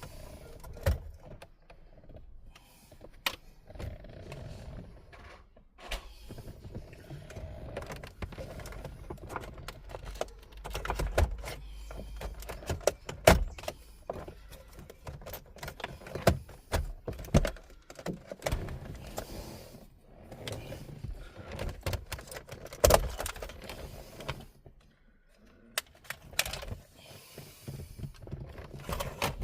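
Irregular clicks, knocks, rattling and scraping of hand tools and plastic dash trim being worked loose and handled, with a few sharp loud clicks like trim clips letting go.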